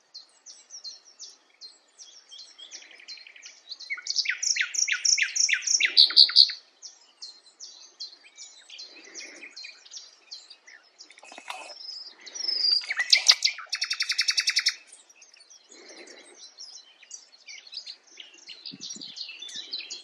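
Common nightingale singing varied phrases of rapidly repeated notes. The loudest parts are a fast run of ringing strokes a few seconds in and a rapid buzzy trill past the middle. Soft breathing from the person recording is heard between phrases.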